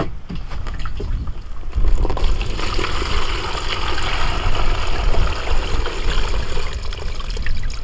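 Water pouring from a plastic jerry can into a collapsible fabric bucket: a steady splashing stream that starts about two seconds in, after a few light handling knocks, and eases off near the end.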